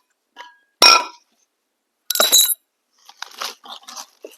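A tumbler and its metal straw being handled and put down: a sharp clink with a brief ring about a second in, a second ringing clink near two seconds, then light knocks and rattles.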